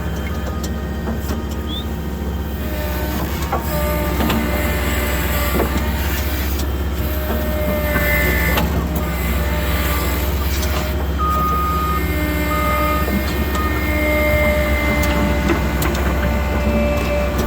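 Case 580 Super N backhoe's diesel engine running steadily under work, with high whining tones that come and go and a few sharp clicks.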